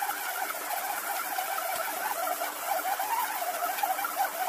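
Silvercrest stand mixer's 650-watt motor running steadily as it kneads bread dough, its hum wavering slightly under the load without sounding strained.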